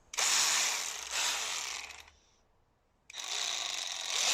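Cordless impact ratchet run free off load, its motor spinning up in two triggered bursts of about two seconds each, the second starting about three seconds in.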